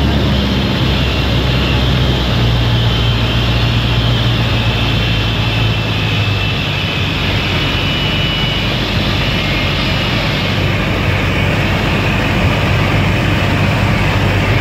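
Piper Super Cub's piston engine and propeller droning steadily in cruise, mixed with rushing air, heard from inside the small cabin.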